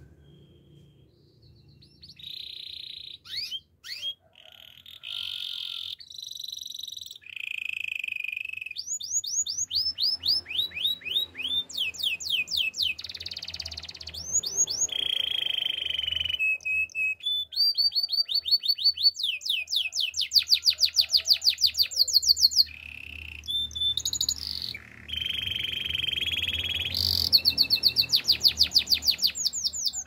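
Canary singing a long, varied song, starting about two seconds in: fast trills of rapidly repeated notes alternating with held, buzzy notes.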